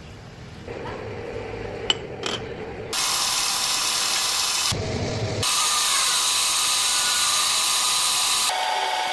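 Metal lathe machining in a string of short clips that change abruptly: a couple of sharp clicks, then the loud steady hiss of a tool cutting metal, with thin whining tones over it.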